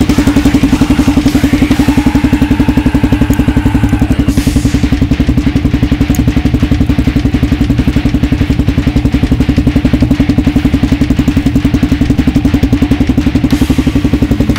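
Honda XR250R's single-cylinder four-stroke engine idling with a steady, even pulse.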